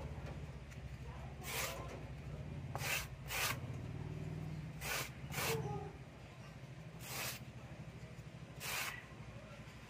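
Fingers rubbing and scraping the rough cut edge of a styrofoam disc to clean it up, in about seven short separate strokes.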